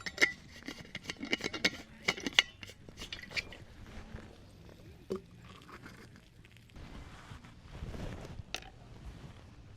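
Metal camp cookware being handled: a quick run of sharp clinks and scrapes over the first few seconds, then quieter, scattered handling sounds.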